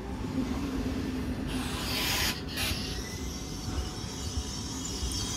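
PKP Intercity ED250 Pendolino electric train at the platform, a low rumble with a steady hum. About a second and a half in, a burst of air hissing lasts roughly a second, with a short break in the middle.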